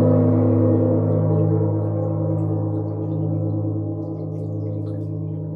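Large gong held up by its cord, ringing on after being struck: a deep, steady hum with many overtones that slowly fades.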